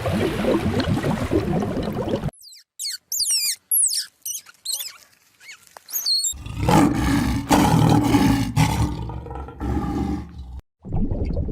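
A sequence of animal calls. A dense rasping noise is followed by a few seconds of thin, high chirps and squeaks. Then a big cat gives a loud, deep roar lasting about four seconds, starting a little past the middle.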